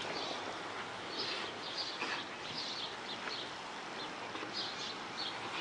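Birds chirping in short repeated calls over a steady outdoor hiss.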